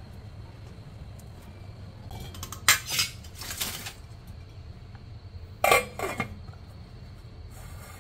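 Stainless steel pot and lid clanking: sharp metal clinks with a short ring, loudest about a third of the way in and again about three-quarters through as the lid is set on the pot, over a steady low hum.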